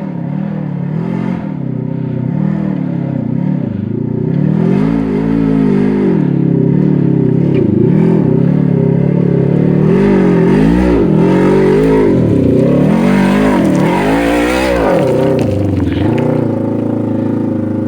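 Polaris RZR side-by-side engine revving up and down again and again through a fresh aftermarket exhaust as it climbs a steep hill, getting louder as it approaches; a throaty note.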